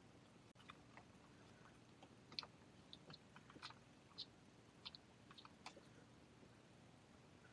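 Near silence with faint, irregular small clicks and ticks of hand tools, screws and small parts being handled while a steering rack is bolted onto an RC truck chassis.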